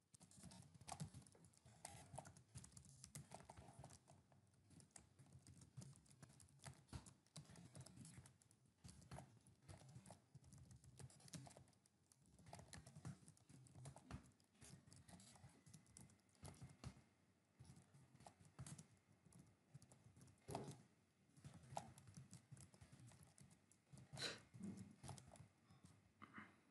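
Faint typing on a computer keyboard: irregular runs of key clicks broken by short pauses.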